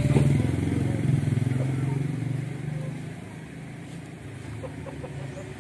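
A motor vehicle's engine running close by, loud at first and fading away after about two seconds.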